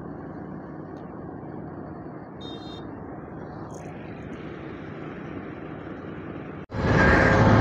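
Steady diesel engine rumble of an asphalt cold milling machine and a Tata tipper truck being loaded from its conveyor. Near the end the sound cuts abruptly to a much louder, closer engine drone.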